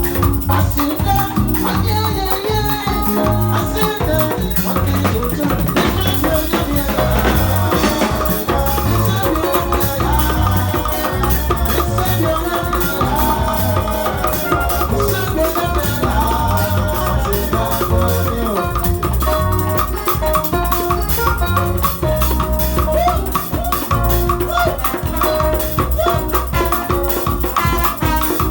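Amplified live band music with a steady pulsing bass beat, a shaker rattling along, and a wavering melody line over it.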